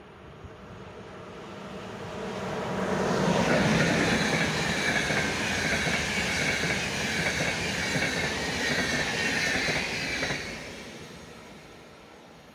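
ÖBB EuroCity passenger train, an electric locomotive hauling coaches, passing through a station. The rumble of wheels on rail swells over the first few seconds and stays loud for about seven seconds, with a high whining tone above it, then fades as the last coach goes by.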